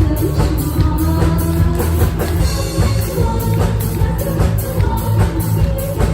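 Live pop-rock band playing, a drum kit keeping a steady beat under a sung melody.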